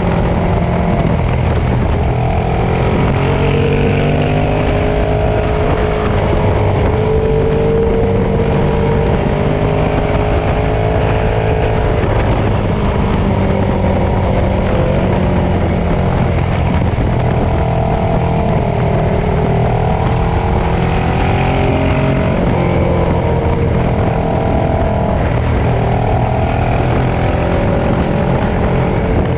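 Ducati Streetfighter 848's L-twin engine running at road speed, its pitch rising and falling gently with the throttle through the bends, over steady wind rumble.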